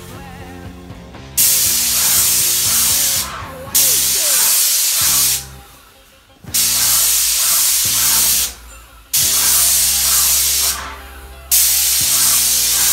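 Graco 390 airless paint sprayer's gun hissing as it atomises paint onto a wall. The trigger is pulled five times in bursts of one to two seconds, each starting and stopping sharply.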